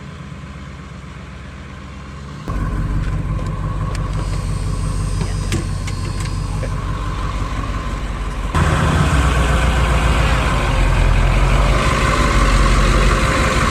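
Diesel bus engine running at low speed as the bus creeps forward, a steady hum that jumps louder twice, a couple of seconds in and again past the middle.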